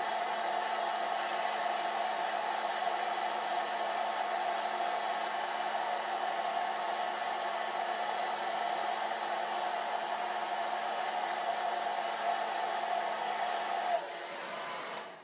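Handheld hair dryer running steadily, blowing on wet acrylic paint test swatches to dry them; it is switched off about a second before the end.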